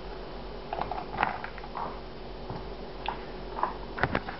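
Whole tomatoes going into a steel pot of hot water for blanching: a few separate soft plops and splashes, with sharper knocks against the pot near the end.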